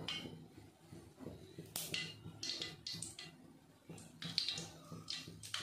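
Cooking oil poured in a thin stream from a plastic bottle into a nonstick kadai, trickling and splashing in short, irregular bursts.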